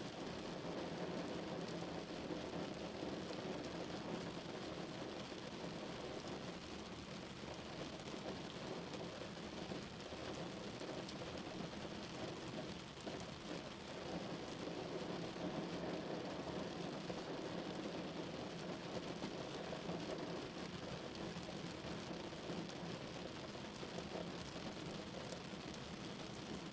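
Rain falling on a car's roof, heard inside the cabin as the car drives, with a steady low road noise beneath and fine scattered raindrop ticks.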